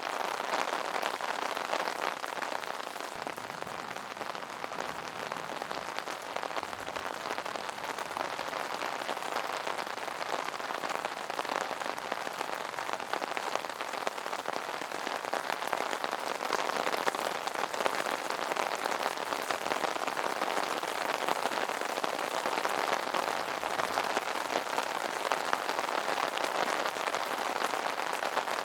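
Steady rain pattering on an umbrella's fabric canopy: a dense, even patter of many small drop impacts.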